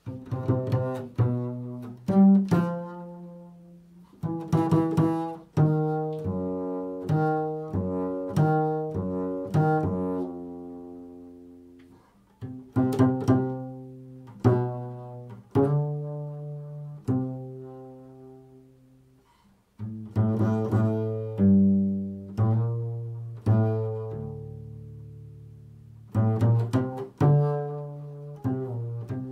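Double bass played pizzicato: a solo line of plucked notes, each ringing and fading, in phrases with brief pauses between them. It is improvised.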